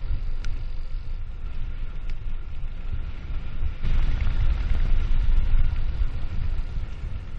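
Wind rushing over the microphone and tyre rumble on asphalt from a bicycle descending a paved path, with small scattered ticks and rattles. The rush grows louder about four seconds in and eases near the end.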